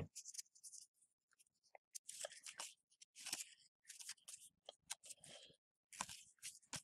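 Faint, scattered rustles and flicks of trading cards being leafed through by hand, card sliding over card in short irregular strokes.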